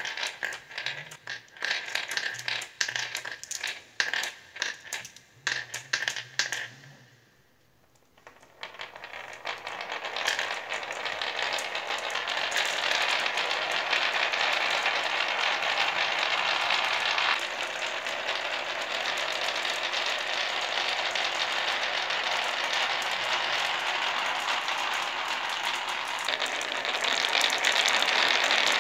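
Glass marbles on a wooden marble-run slope. First come sharp separate clicks as the marbles knock together while they are fed into the groove. After a short pause comes a dense, continuous clattering rattle as dozens of marbles roll down the winding wooden groove, knocking against each other and the groove walls, and it grows louder near the end.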